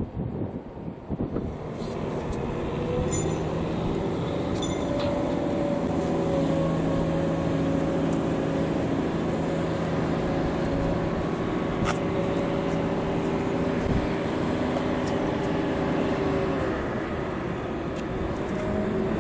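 An engine running steadily, a low hum with several held tones that shift in pitch near the end, over a background of wind and harbour noise. A few sharp clicks cut through it.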